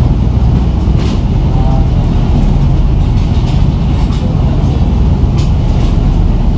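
Sakurajima ferry's engines and propeller wash making a loud, steady low rumble, heard on the open deck at the stern as the ferry gets under way.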